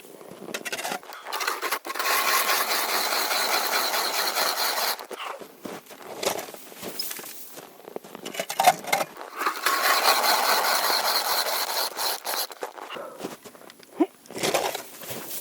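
Ice and snow being scraped and crunched in two long stretches of about three seconds each, with shorter scrapes in between, while holes are worked in river ice.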